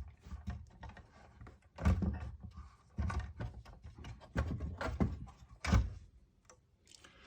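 Irregular dull knocks and clatter of handling as a PS3's motherboard is worked loose and lifted out of the console's chassis.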